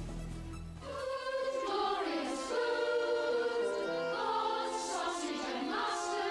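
Music with a choir of voices singing together in harmony, coming in about a second in after a low hum fades out.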